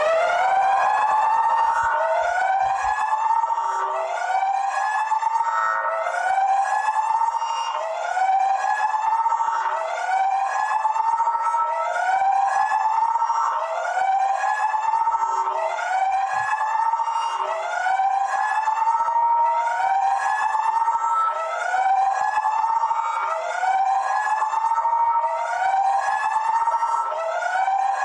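Electronic alarm siren sounding continuously, repeating a rising whooping sweep about once every second and a bit.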